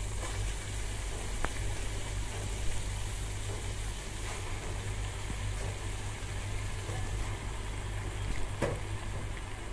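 Faint frying sizzle from a wok of prawn masala as Malabar spinach leaves go in, over a steady low hum, with a few light clicks.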